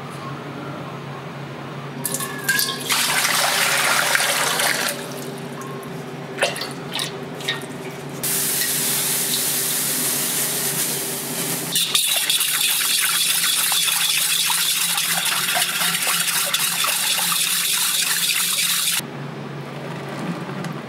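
Water running from a tap into a stainless steel dough-mixer bowl in two spells, a short one a couple of seconds in and a long steady one from about 8 to 19 seconds, over a steady hum of kitchen machinery.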